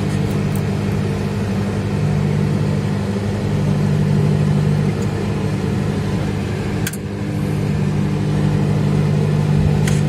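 Microwave oven running: a steady, loud electrical hum, with a faint click about seven seconds in, as it heats cultured milk until the whey separates into curd.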